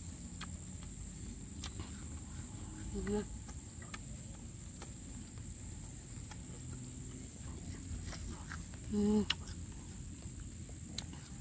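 A woman eating cooked grasshoppers, making two short closed-mouth 'mm' hums while chewing, about three seconds in and again near nine seconds, with faint small clicks of chewing between. A steady thin high insect-like tone sits underneath.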